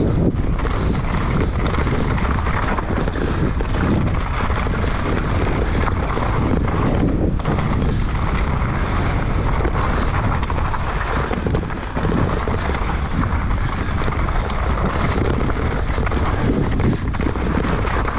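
Wind buffeting the microphone over the steady rumble of a mountain bike's tyres on a rocky downhill trail, with frequent knocks and rattles from the bike as it hits rocks.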